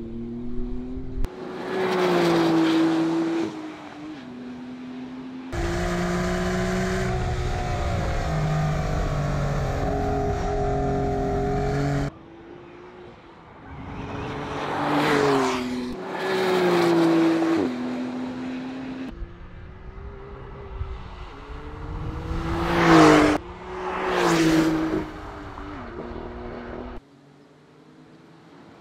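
Porsche 911 Carrera GTS's turbocharged 3.0-litre flat-six driven hard on a race track, passing by several times. The engine note climbs through the revs and drops in steps at each gear change, and each pass swells and fades.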